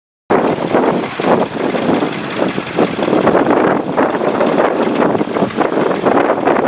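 Ford 4000 tractor engine running under load, pulling a two-furrow plough. The sound cuts in abruptly a fraction of a second in and then runs loud and steady.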